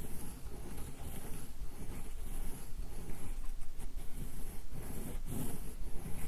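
Solid ink stick being ground on a wet inkstone, a rhythmic back-and-forth scraping, roughly one stroke every second.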